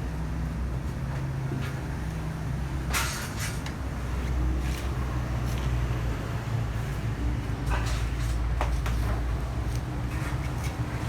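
Several sharp knocks and clanks, as of parts and tools being handled, over a steady low hum.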